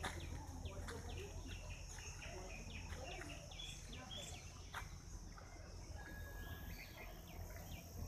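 Birds chirping in quick, short, repeated calls over a steady high insect drone.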